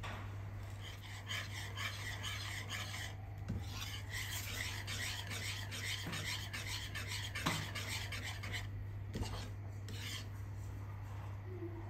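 Stainless wire whisk scraping rhythmically against the pan as it stirs thick béchamel sauce, with a brief pause a few seconds in and slower strokes near the end. A steady low hum runs underneath.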